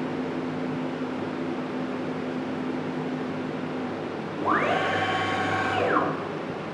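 CNC milling machine idling between cuts with a steady low hum. About four and a half seconds in, its axis drive motors whine up in pitch, hold briefly, and wind back down as an axis makes a quick traverse lasting about a second and a half.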